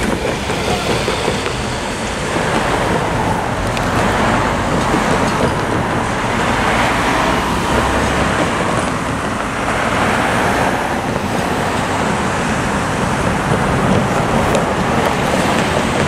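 Road traffic: cars and trucks driving across the railroad crossing one after another, each one swelling and fading as it passes.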